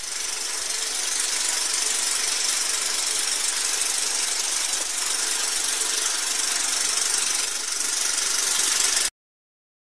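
Film projector running steadily as a sound effect, then cutting off suddenly about nine seconds in.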